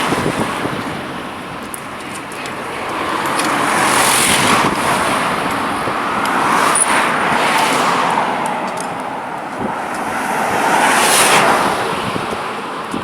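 Road traffic on a highway: vehicles passing one after another, their tyre and engine noise swelling and fading about three times.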